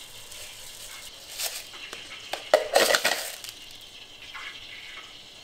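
Caustic soda (sodium hydroxide) granules being spooned from a plastic tub into a plastic bowl on a kitchen scale. A few light clicks come first, then a cluster of clinks and rattles about halfway through as the spoon and granules hit the bowl.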